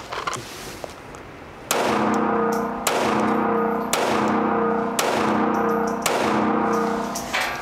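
Springfield Armory 911 subcompact .380 ACP pistol fired six times, about a second apart, each shot echoing in an indoor range.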